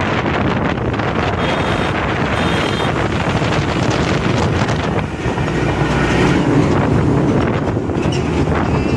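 Wind rushing over the microphone with road and engine noise while riding a motorcycle. It passes close alongside a container lorry, whose rumble swells about six to seven seconds in.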